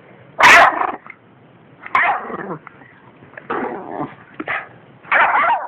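A Yorkshire terrier barking, about five short barks spread through the few seconds, the first the loudest.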